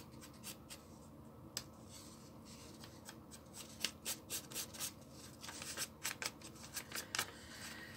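Paper being handled and rustled by hand: an irregular run of short crinkles and light taps, busier from about halfway through.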